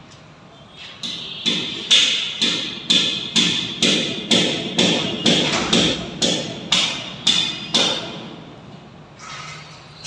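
Hammer striking metal overhead in a steady run of about fifteen blows, a little over two a second, each with a bright metallic ring. The blows stop about eight seconds in.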